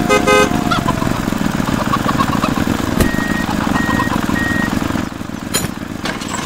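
A small tractor engine running steadily, with a short horn toot right at the start and three short high beeps around the middle.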